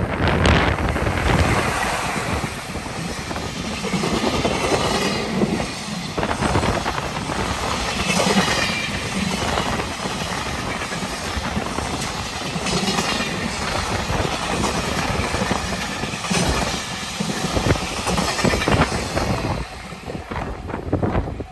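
Freight train passing at speed, its wagons' wheels clattering rhythmically over the rail joints, with wind noise on the microphone.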